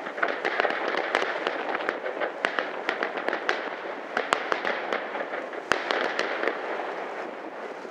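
Aerial fireworks display: shells bursting with a dense, continuous crackle and many sharp pops, one especially sharp bang about three-quarters of the way through. The crackle thins a little near the end.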